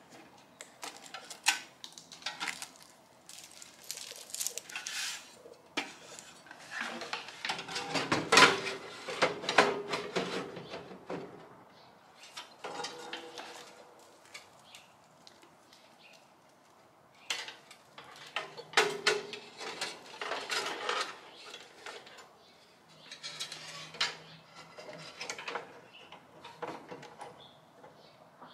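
Hard metal objects being handled: irregular clinks, rattles and knocks in clusters, with a quieter lull about halfway through.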